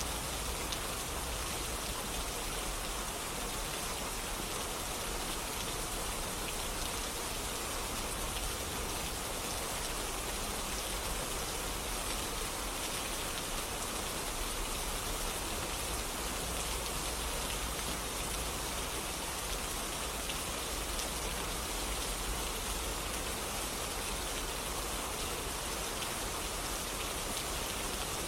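Steady rain falling, a dense even hiss of drops on surfaces with fine patter throughout.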